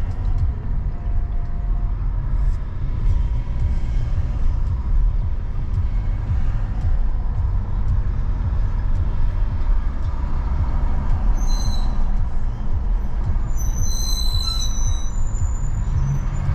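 Steady low rumble of road and wind noise from a car cruising along an expressway. In the last third there are short high-pitched squeals, one brief and then a longer cluster.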